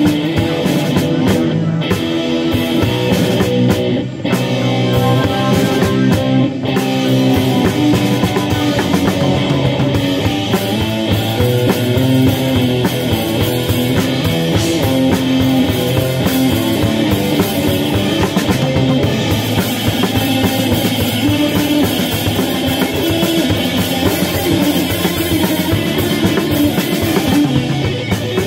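Instrumental rock band playing live: amplified electric guitars and bass over a drum kit, with short breaks about four seconds in and again a couple of seconds later.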